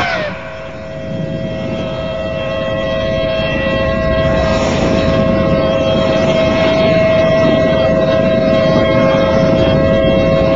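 Outdoor tornado warning siren sounding a steady two-note chord over a constant low rumble of wind noise, growing louder over the first few seconds.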